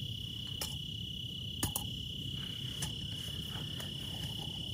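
Crickets trilling in one unbroken, steady high tone over a low steady rumble, with a few faint clicks.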